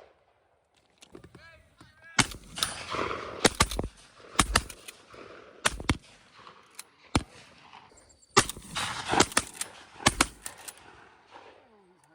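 Shotgun shots from several hunters firing at doves, about a dozen over some ten seconds, irregularly spaced and often in quick pairs, some near and loud, some fainter, each followed by a short echo.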